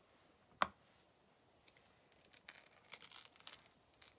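A single sharp click about half a second in, then faint, uneven crinkling and rustling of a plastic chalk-transfer sheet being peeled off a painted tag.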